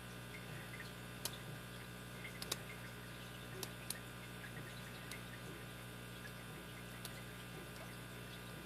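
Faint, scattered clicks of a lock pick and tension wrench working in the keyway of a vintage 54 mm Corbin five-pin padlock, over a steady low hum.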